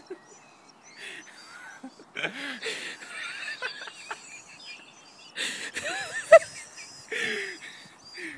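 A man laughing in four breathy bursts with short pauses between them.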